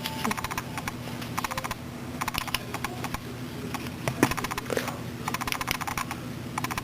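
Clusters of quick, light metallic clicks and rattles from a padlock being turned and handled in the hand. A faint steady hum lies underneath.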